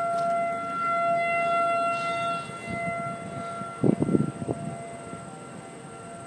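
Federal Signal 2001 electromechanical outdoor warning siren sounding a steady, unwavering tone for its monthly test. It swells in the first couple of seconds, then fades. A few short low bumps come about four seconds in.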